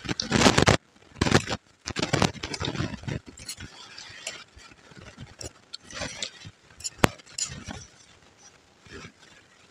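Close-up chewing and crunching of puffed rice mixed with ghugni, loudest in the first three seconds. A metal spoon scrapes the steel plate, with one sharp clink about seven seconds in.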